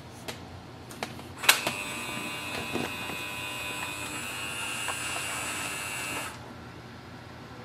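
Canon Pixma TR7620a printer's scanner mechanism starting a document scan: a few clicks, then a steady motor whine for about five seconds that cuts off suddenly, as the machine prepares to scan.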